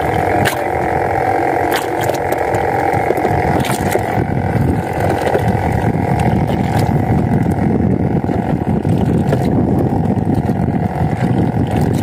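Small boat's engine running steadily at idle, with a few light clicks over it.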